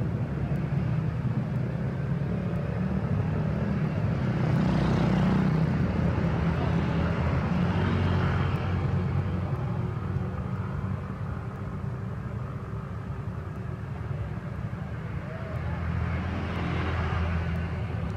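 Road traffic with heavy diesel trucks: a continuous low engine rumble, with cars and motorcycles passing close by. The noise swells about four seconds in and again near the end as vehicles go past.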